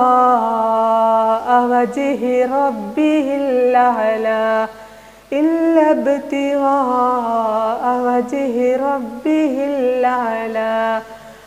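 A woman reciting Qur'anic verses in a melodic tajweed chant, drawing out the vowels in long held, gliding notes. She sings two long phrases, with a short pause a little before five seconds in.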